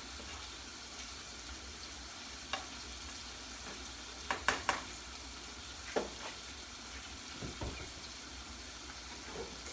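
Sweet peppers and vegetables sizzling steadily in oil in a frying pan, with a utensil knocking against the pan a few times, loudest in a quick cluster around the middle.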